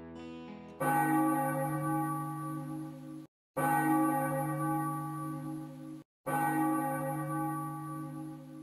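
A church bell struck three times, about two and a half seconds apart. Each strike rings out with a slow fade and is cut off suddenly just before the next.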